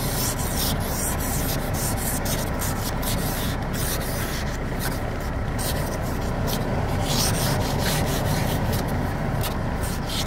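Hand ice scraper scraping frost and ice off a frozen car window in repeated rasping strokes, about one or two a second.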